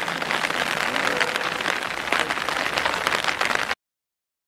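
Steady rain pattering as a dense crackling hiss, cutting off suddenly near the end.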